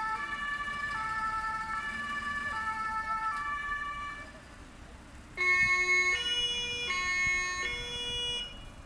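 Two-tone emergency sirens (German Martinshorn) on the fire-brigade vehicles, sounding in the usual alternating high–low pattern. The first fades out about four seconds in. About a second later a second, louder two-tone horn on lower notes starts up and stops shortly before the end.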